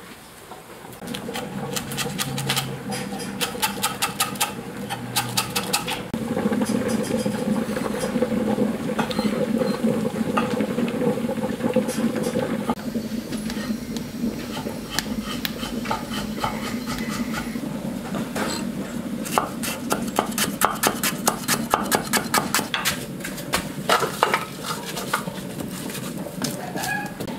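Food-preparation and cooking sounds: many sharp clicks and knocks of utensils and cookware being handled, over a steady low background.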